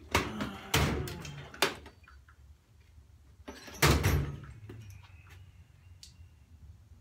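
A few sharp knocks and clanks in a workshop as metal parts and tools are handled during assembly. The loudest comes about four seconds in and rings briefly.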